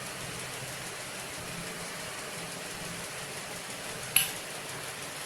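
Steady background hiss with a faint low hum, and one sharp click about four seconds in.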